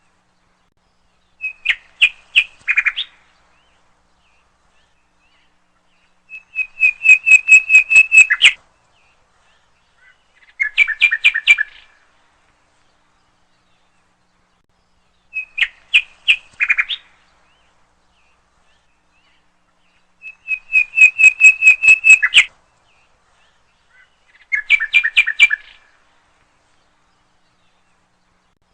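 Common nightingale singing: six phrases, each a quick run of repeated clear notes, separated by silent pauses of a few seconds. The same three phrases come twice over.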